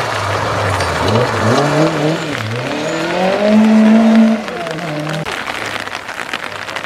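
Classic rally car engine at full throttle, the revs climbing and falling several times through gear changes as it passes. It is loudest about four seconds in, then drops away quickly, over a steady hiss.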